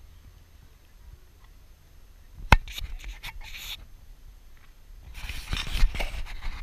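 Rubbing and scraping right against the camera microphone, with one sharp knock about two and a half seconds in and a louder stretch of irregular rustling near the end.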